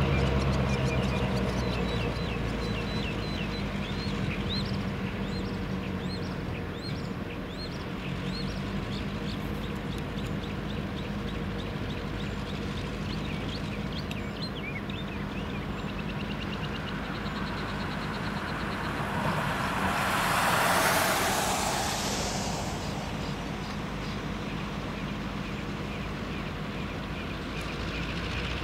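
Norfolk Southern diesel-electric locomotive engine running at low idle with a steady hum, loudest at the start. Birds chirp over it through the first half. About twenty seconds in, a hiss swells and fades over a few seconds.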